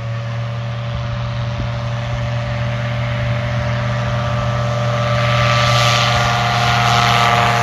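Bat Hawk light aircraft's Rotax 912 engine and propeller running at takeoff power, growing steadily louder and rising slightly in pitch as the plane approaches.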